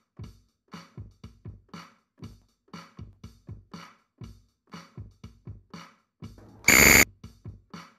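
Countdown-timer background music: a steady electronic drum-machine beat of short, quick hits. Near the end, as the timer reaches zero, a loud, brief burst sounds.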